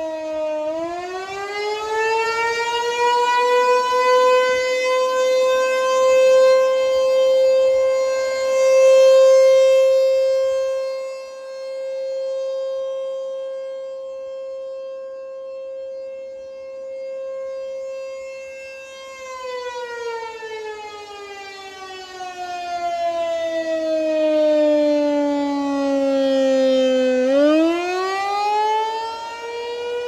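American Signal T-128 outdoor warning siren sounding a wail: the pitch climbs to a steady high tone, holds for about twelve seconds, then slides down and starts climbing again near the end. The loudness swells and fades as the rotating siren head turns.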